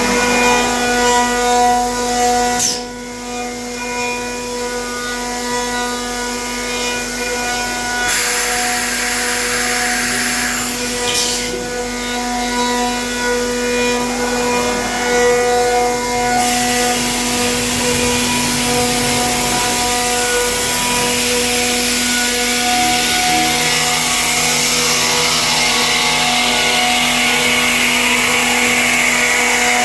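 CNC router spindle milling a walnut gun stock, a steady high whine under the hiss of the cutter in the wood. The cutting noise shifts as the tool moves, growing louder in the second half.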